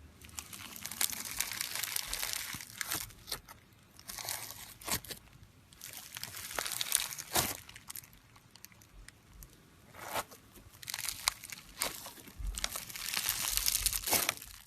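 Slime being squeezed and worked by hand, in several bouts of crackly noise with many small pops, separated by short pauses.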